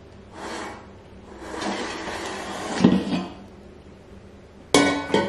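A 3.5-litre air fryer's plastic basket drawer being pulled out and handled: sliding, scraping swishes and plastic wrap rustling, a heavier knock about three seconds in, then two sharp plastic clacks near the end.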